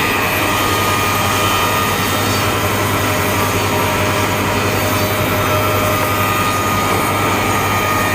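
Six-head wood moulding machine running steadily: a loud, even machine noise with a constant low hum and no change in pace.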